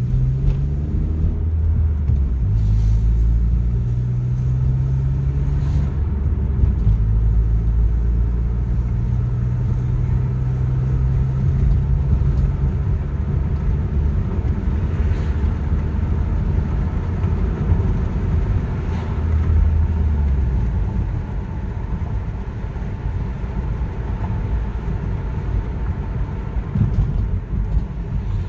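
A car driving along city streets. Its low engine note climbs in pitch in the first second or so as it accelerates, then holds steady at cruising speed over road and tyre noise. For the last several seconds the engine note gives way to an even road rumble.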